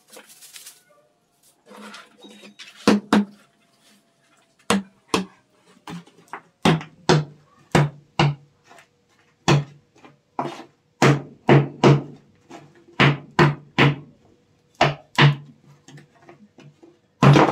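Small hammer striking lumps of stone lime (quicklime) on a board, crushing them into small pieces: a long run of sharp knocks, irregular at roughly one to two a second, starting about three seconds in.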